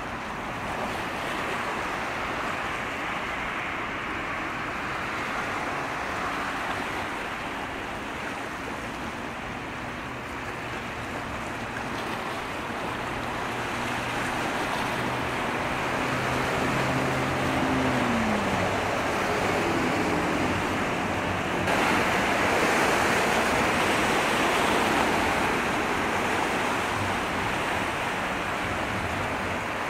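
Steady rush of wind and sea waves. A low engine hum runs through the middle and drops in pitch at about eighteen seconds. The rushing turns abruptly louder and brighter at about twenty-two seconds.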